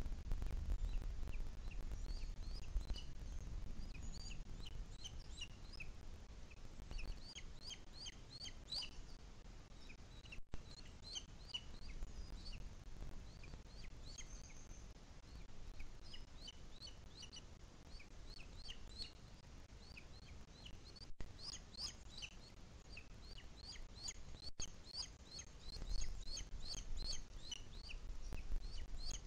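Booted eagle chick giving thin, high-pitched begging calls, short chirps in quick runs, while the adult feeds it. A low rumble sits under the calls at the start and again near the end.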